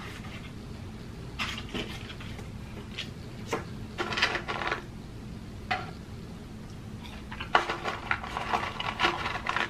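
Paper fries carton rustling and scraping as a hand digs fries out of it, in several short bursts, busiest near the end.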